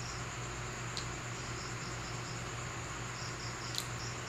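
Crickets chirping in short repeated pulses over a steady low hum, with two sharp clicks, one about a second in and one near the end.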